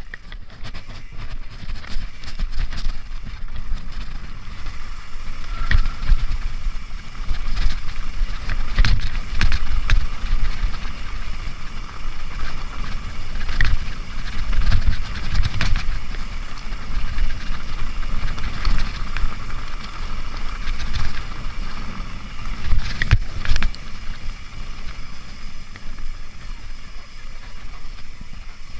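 Mountain bike rolling fast down a rough gravel trail: tyres rumbling over loose stones with repeated sharp knocks and rattles from the bike over bumps, and wind buffeting the microphone.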